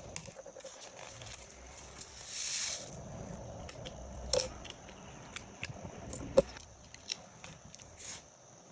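Small handling sounds of sand painting: light clicks, taps and scrapes from a plastic spoon and a toothpick working colored sand over the sheet and its cups. A short hiss of sand comes about two and a half seconds in, and a sharp tap about six seconds in.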